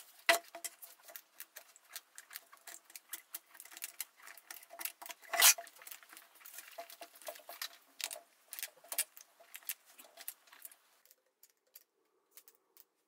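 Close-up scratching, rustling and clicking of old upholstery fabric being pulled and prised off a chair seat, with two louder sharp snaps, one just after the start and one about five and a half seconds in. The handling sounds thin out to a few scattered clicks near the end.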